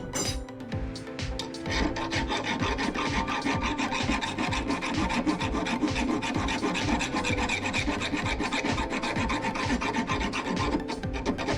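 Hacksaw cutting through a steel bar by hand: fast, even rasping strokes that start about two seconds in.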